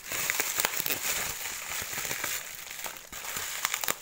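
Plastic bubble wrap crumpled and handled by hand: a dense crinkling full of small crackles, starting suddenly and dropping away just before the end.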